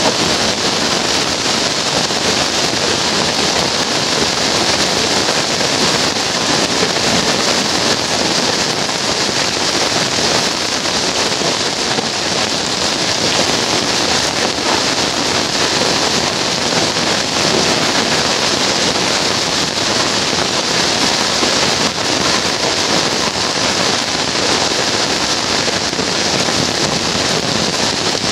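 Heavy rain pouring down onto a wet paved street: a loud, steady hiss.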